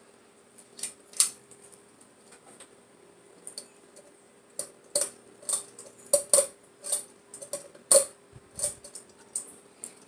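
Ceiling fan pull-chain switch clicking as the metal ball chain is tugged again and again, with the chain rattling. There are a couple of clicks about a second in and a quick run of them in the second half, over a faint steady hum from the fan.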